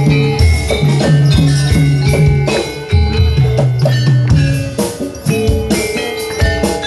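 Live jaranan music: a Javanese gamelan-style ensemble of hand drums and metal mallet percussion playing a steady driving rhythm over held low notes.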